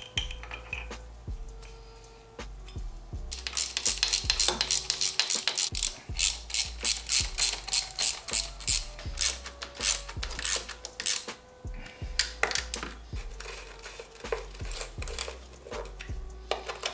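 Ratchet wrench clicking in quick, even runs of strokes while the injector hold-down bolts are tightened on a 2.0 TDI CJAA diesel engine. The clicking starts about three seconds in, keeps up through the middle and thins to a few scattered clicks near the end.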